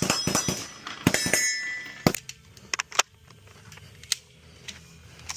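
A quick run of sharp metallic clicks and clinks, some with a brief ringing tail, in the first second and a half, then a few scattered single clicks.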